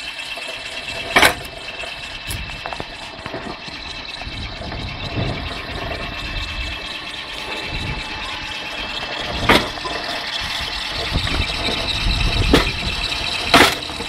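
Homemade firewood splitting machine running steadily, its electric motor driving a belt pulley and gearbox. A few sharp cracks stand out, the clearest about a second in, twice in the second half and just before the end.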